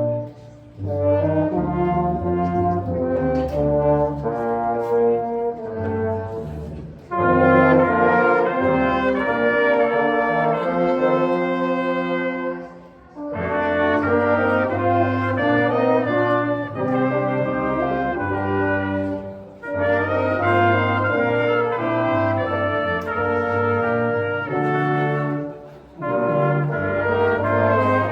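Brass ensemble playing sustained chords in phrases, with a short break between phrases about every six seconds.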